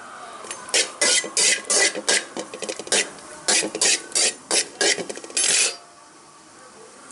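Perforated stainless-steel slotted spoon scraping around the bottom of a metal kadai, stirring cashews frying in ghee: a run of quick rasping strokes, about two or three a second, that stop a little before six seconds in.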